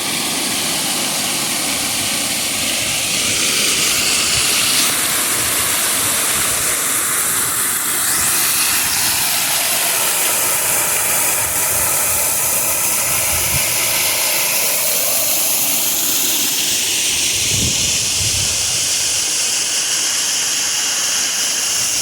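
Floodwater rushing out of a rain-swollen lagoon: a loud, steady din of running water with a constant hiss.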